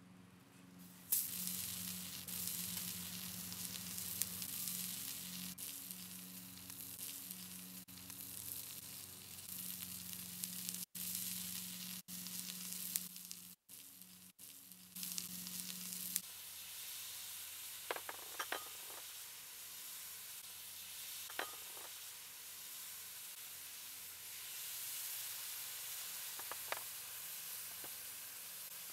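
Hot oil and vegetables sizzling steadily in a cast-iron Dutch oven over charcoal, cut off briefly a few times near the middle. A few short ringing clinks come in the second half.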